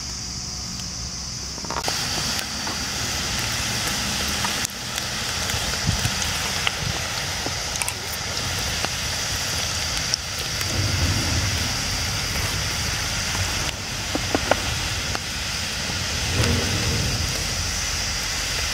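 Peanut pakoda batter deep-frying in hot oil in a kadai, a steady sizzling hiss as handfuls of batter are dropped in, growing louder about two seconds in, with small pops and spatters.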